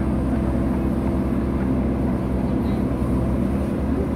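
JCB 3DX backhoe loader's diesel engine running steadily while the backhoe arm digs.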